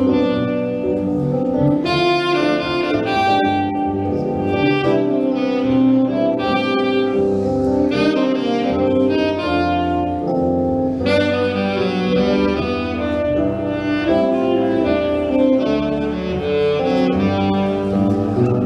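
Instrumental break of a song: a lead melody moving through held notes over a steady lower accompaniment, with no singing.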